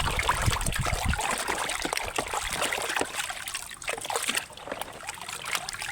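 Water trickling and splashing over a muddy toy as it is rinsed clean, with small drips and knocks; louder in the first second, then softer.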